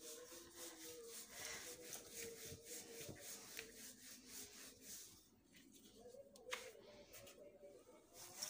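Wooden rolling pin rolling dough out on a floured silicone mat: faint, repeated rubbing strokes back and forth.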